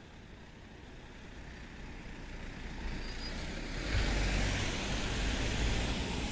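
A road vehicle driving past, its noise swelling over a few seconds and loudest from about four seconds in, with a deep engine rumble under the tyre noise.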